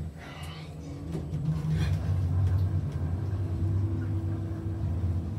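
Lift car in motion: a steady low hum and rumble from the moving car that builds up about a second in and holds.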